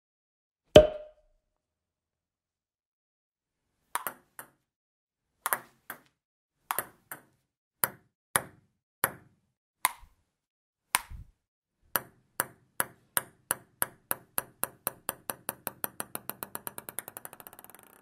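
Cartoon-style sound effects: a single sharp ping-like hit with a short ring. After a pause come sharp taps, spaced about a second apart at first, then quickening into a rapid patter that fades away near the end.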